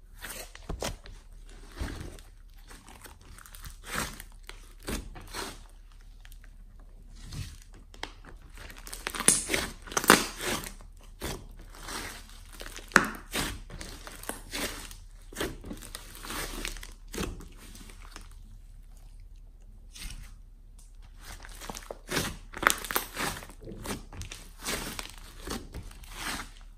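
Thick slime mixed with clay and glitter being squeezed and kneaded by hand: irregular sticky squelches and crackling pops. The pops come in louder clusters about ten seconds in, again around thirteen seconds, and near the end.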